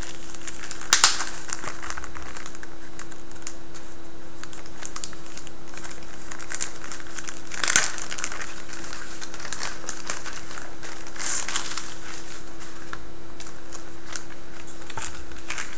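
Clear plastic packaging crinkling and rustling as printed papers are handled and slid out of it, with sharp rustles about a second in and again near the middle, over a steady low hum.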